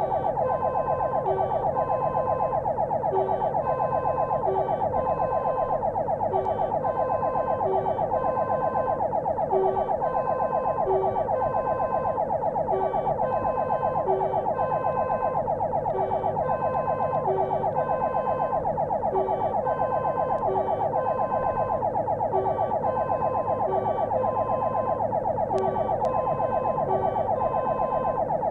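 Fire engine's electronic siren sounding without a break on an emergency run, heard from inside the vehicle. It is a fast warbling tone with a repeating high-low two-tone pattern over it.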